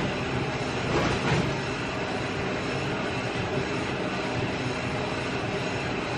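Steady rumbling background noise of a gym, with a brief louder swell about a second in.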